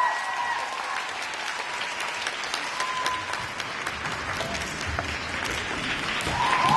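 Theatre audience applauding steadily at a curtain call, with a few high-pitched cheers fading out in the first half second.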